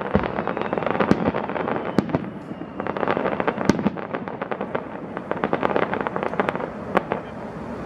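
Fireworks going off: a dense run of rapid sharp cracks and crackling, with several louder single bangs among them.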